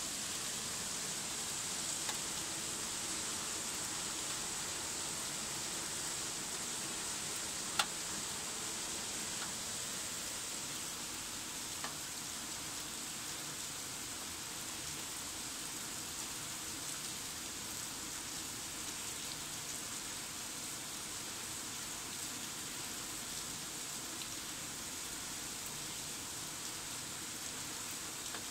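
Steady rain falling on a wet paved courtyard, an even hiss. A single sharp tap stands out about eight seconds in, with fainter ticks near two and twelve seconds.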